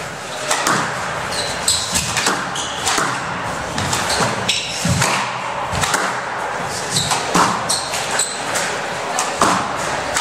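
Squash rally: the ball cracking off rackets and walls again and again, at uneven intervals, with short high squeaks from shoes on the court floor every few seconds.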